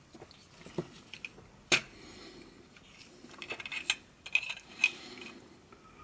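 Light clicks and clatter of plastic headphone parts being handled and set down on a work mat: one sharp click just under two seconds in, then a run of small clicks and rattles in the second half.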